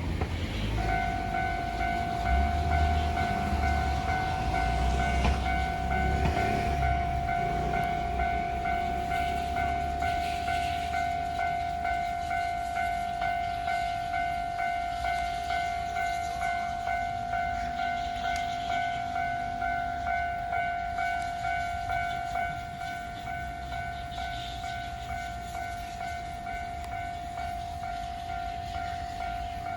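Japanese railway level crossing warning bell starting up about a second in and ringing in a steady, even pulse of about two strokes a second, growing quieter near the end. A low rumble of traffic runs underneath for the first several seconds.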